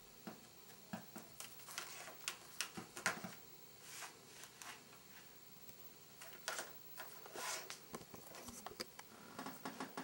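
Irregular soft clicks and brief paper rustles as a cat paws and mouths at a cord lying on an open paper notebook, with a few longer rustles in the middle.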